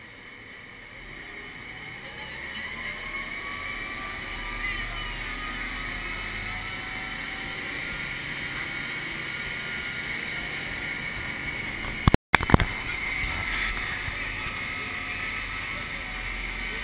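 Amphibious truck underway on a river: its engine and the water noise grow louder over the first few seconds as it gets moving, then run steadily, with a faint rising whine. About twelve seconds in there is a brief loud crackle and the sound cuts out for an instant.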